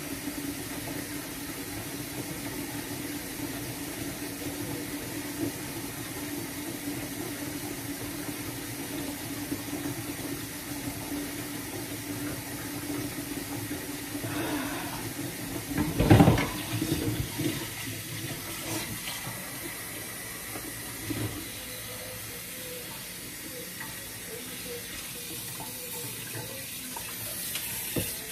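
Steady rushing hiss with a low hum, like water running, for about the first two thirds; a loud knock about 16 seconds in, after which it quietens to a fainter hiss with a few small knocks.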